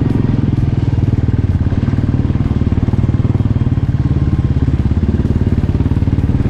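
Royal Enfield Bullet's single-cylinder four-stroke engine running steadily under way, its firing strokes heard as a fast, even beat.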